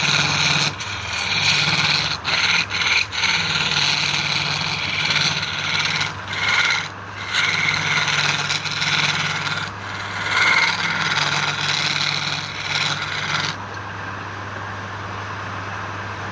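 Wood lathe running with a steady motor hum while a tool scrapes against the spinning wood in uneven passes. The scraping stops near the end, leaving the motor hum alone.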